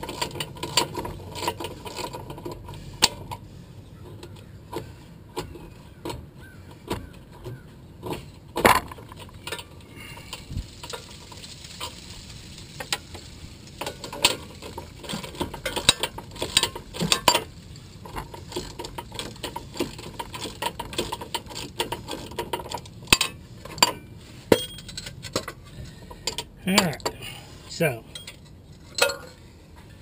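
Ratchet wrench clicking in irregular runs as the rear wheel hub's mounting bolts are backed out, with sharp metallic clinks and knocks from the wrench and hub assembly.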